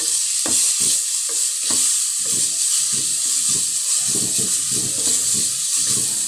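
Sliced onions, curry leaves and ginger-garlic paste sizzling in hot oil in a clay pot, with a wooden spatula stirring and scraping them round in quick repeated strokes, the strokes coming faster from about two seconds in.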